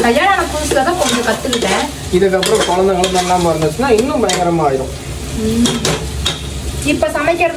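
A spatula stirring and scraping food in a pan over frying sizzle. The scrape squeals in pitch arcs that rise and fall with each stroke, with short clicks against the pan.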